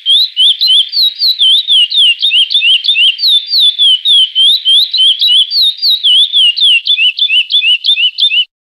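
A curió (chestnut-bellied seed finch) singing the 'praia clássico' song: an unbroken run of rapid, clear whistled notes sliding up and down in pitch, which stops abruptly just before the end.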